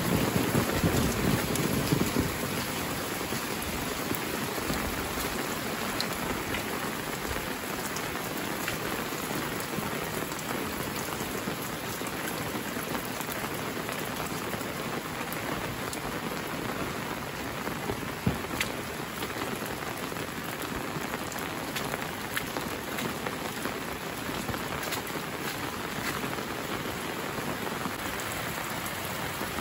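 Steady rain falling on the ground and roofs, with scattered single drops ticking through it. A little louder for the first two seconds, then even, with one sharper tap about eighteen seconds in.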